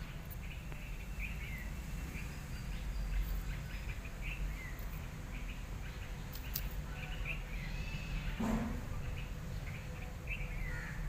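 Small birds chirping in the background: short, high chirps, several gliding downward, scattered every second or so over a low steady rumble.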